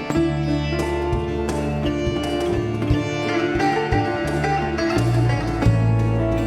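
Sitar playing a melody with ringing plucked notes over held low bass notes, part of a Latin-tinged Indian fusion ensemble.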